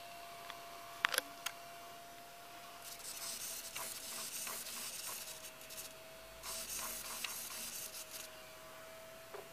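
Radio-control servos whirring in two short runs as their horns swing, over a steady high whine. A couple of sharp clicks come about a second in.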